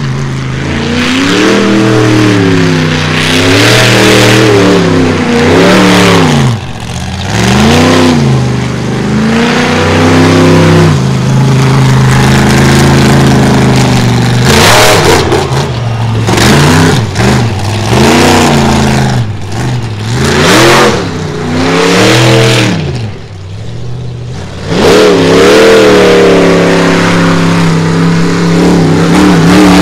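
Monster truck engine revving hard, its pitch rising and falling over and over as the throttle is worked, with a stretch of steady high revs around the middle and a brief drop in level about three-quarters through before it revs up again.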